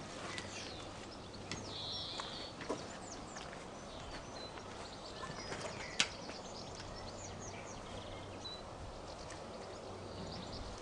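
Birds chirping over a steady low hum, with a few scattered light clicks and one sharper click about six seconds in.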